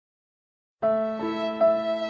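Slow, sad music with long held notes begins a little under a second in, after silence, with new notes entering twice.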